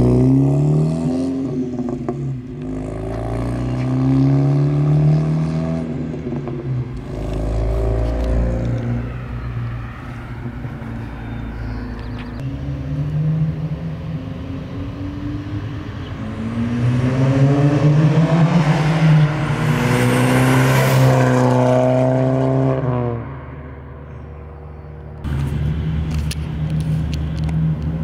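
Audi B8 A4's turbocharged EA888 four-cylinder, catless downpipe and near-straight-piped exhaust, accelerating in several pulls with the engine note climbing and dropping between them. It is loudest about two-thirds in, where the note rises and then falls as the car drives past.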